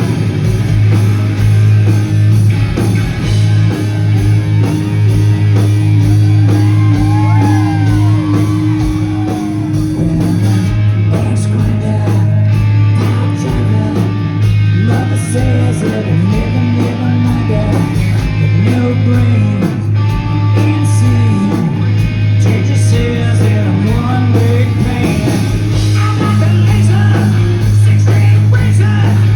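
Loud hard rock music: electric guitar with bending, gliding notes over a steady heavy bass, with some singing or shouting.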